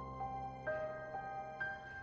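Soft, sad background music: a slow melody of single held notes, about two a second, over a sustained low chord that shifts partway through.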